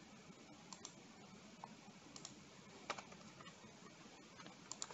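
Near silence broken by a handful of faint computer mouse clicks, several in quick pairs, as a chart tool is placed on screen.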